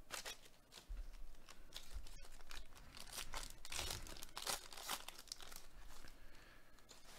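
Foil wrapper of a Panini Prizm baseball card pack crinkling and tearing as gloved hands rip it open, a run of quiet, irregular crackles and rustles.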